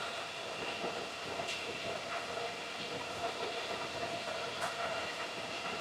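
Steady whir of the cooling fans of many running Bitcoin ASIC miners: a dense hiss with several steady fan tones. Two faint ticks come through, about a second and a half in and again near the end.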